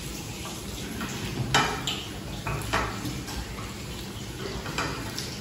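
Fingers mixing and scraping rice and curry on plates, with a few short, light clicks against the plates.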